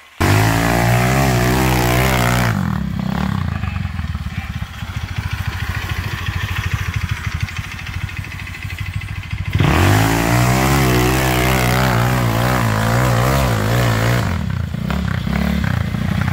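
Small off-road go-kart buggy engine revved hard twice, its pitch climbing each time, dropping back to a low, fast putter in between, as the kart works its wheels through mud and over roots.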